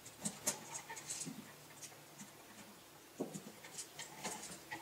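Faint handling noises from a wired electrical receptacle being folded into a metal wall box: light clicks and rustles of the device and its wires, one group in the first second and another from about three seconds in.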